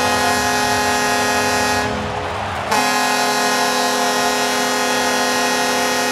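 Ice hockey arena goal horn blowing: one long blast that breaks off about two seconds in, then sounds again for about four seconds.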